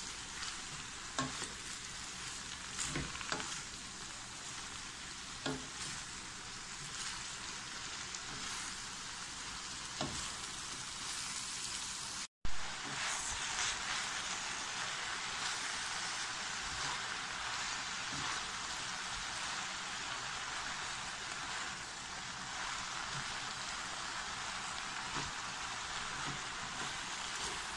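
Shredded cabbage and carrot sizzling in a hot pan as they are stir-fried, with a wooden spoon now and then knocking and scraping the pan in the first half. The sound cuts out for an instant about twelve seconds in, then the sizzling carries on steadily.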